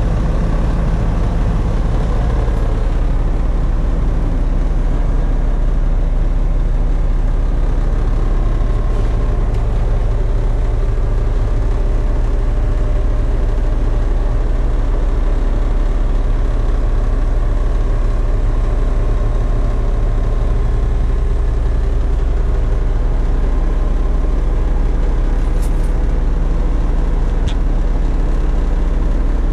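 The truck's Mack AMI 335 diesel engine idling steadily, heard from inside the cab, with a deep even drone and no revving.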